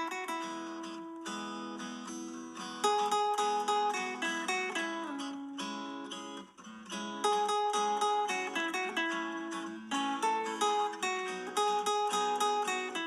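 Background music of a plucked acoustic guitar, picking a melody of quick decaying notes, with a short break about six and a half seconds in.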